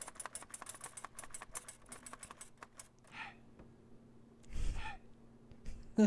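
Antique typewriter keys clacking in a rapid run of strikes for about three seconds. A short breathy noise follows about four and a half seconds in.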